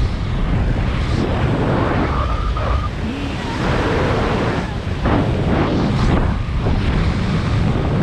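Wind rushing and buffeting over a skydiver's camera microphone at altitude: a loud, heavy noise that swells and dips unevenly.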